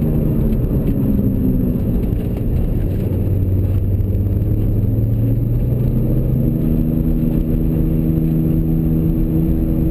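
A low, steady drone inside the cabin of a 2002 BMW E46 M3 driving at speed, from its failing front left wheel bearing, mixed with road and engine noise. The low tones shift about two and a half and six and a half seconds in. The drone is fairly loud and grows worse with speed, the sign of an original bearing starting to go.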